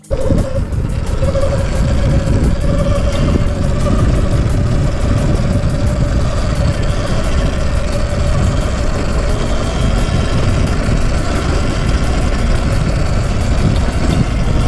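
Sur Ron Light Bee X electric dirt bike being ridden off-road: a steady whine from its electric motor and drivetrain under heavy, rumbling wind noise on the microphone.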